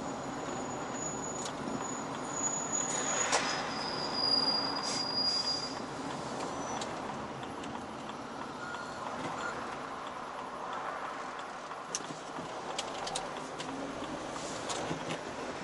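Steady road and engine noise from a vehicle driving on an urban road. Over it are thin, high squealing tones in the first six seconds, the second one lower than the first, and a few faint clicks later on.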